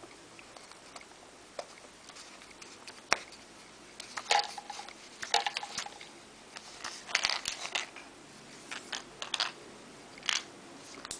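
Plastic clicks and rattles of a Stanley ratcheting screwdriver being handled, its yellow end cap twisted in the fingers. The clicks come singly and in irregular clusters, with two short squeaks partway through.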